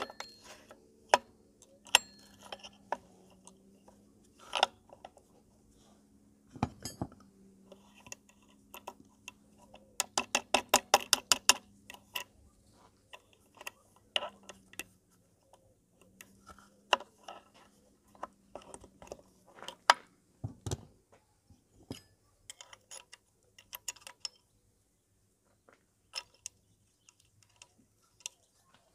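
Scattered metallic clicks and clinks of steel parts and tools being handled on a Honda Tact AB07 scooter's aluminium crankcase as its kick-start mechanism is fitted, with a rapid run of clicks lasting about two seconds around ten seconds in.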